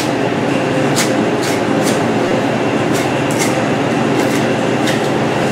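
Steady loud machinery noise with a faint hum, over which come short sharp clicks and snips as a knife cuts through deer hide along a hind leg.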